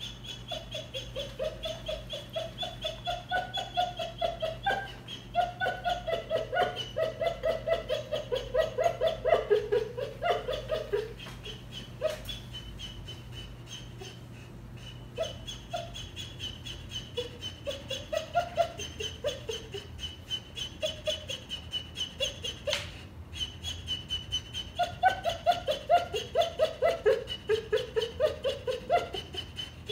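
Bernese mountain dog puppy whining in runs of quick, high whimpers, each run sliding down in pitch, in three bouts with quieter gaps between. The pup is whimpering while recovering from surgery in a cone.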